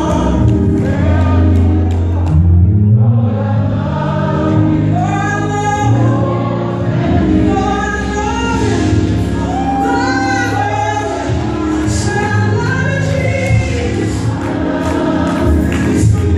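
Live gospel music: voices singing together, choir-style, over instrumental accompaniment with sustained low bass notes.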